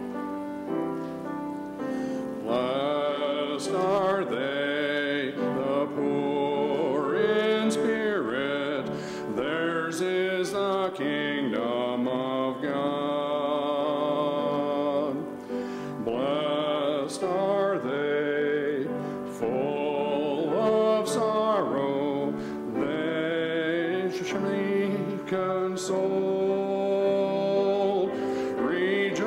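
A solo voice singing with vibrato, accompanied on grand piano.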